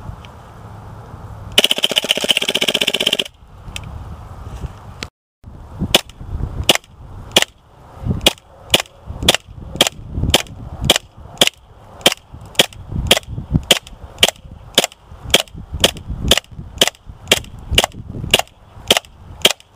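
KWA MP9 gas-blowback airsoft submachine gun firing. A rapid full-auto burst of about a second and a half comes near the start, then single shots at a steady pace of roughly three every two seconds.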